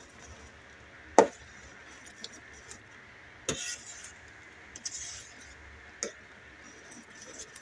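Metal ladle stirring thick champorado in a stainless steel pot, clinking against the pot several times, the loudest clink about a second in.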